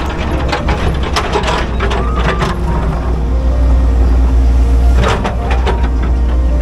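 Excavator's diesel engine running steadily under load, heard from inside the cab, with short hydraulic whines. The bucket scrapes and knocks through soil and stones, in a burst of clatter over the first couple of seconds and again about five seconds in.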